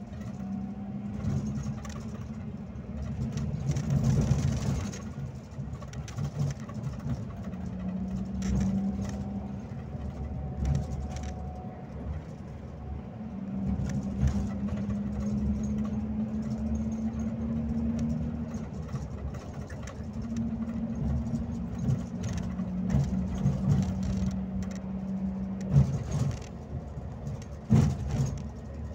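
Scania K360IB coach's diesel engine droning under way with road rumble, heard inside the cabin. The engine note holds steady for a few seconds at a time and rises slightly in pitch now and then, with scattered knocks and rattles, the loudest near the end.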